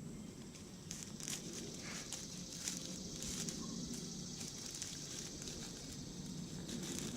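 Unboxed sunglasses parts being handled: irregular rustling and light clicks, typical of plastic packaging and lens pieces being taken out and turned over.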